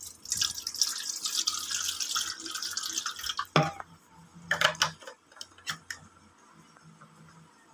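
Water poured from a bottle into a metal bowl, a splashing stream for about three seconds that then stops, followed by a few sharp knocks.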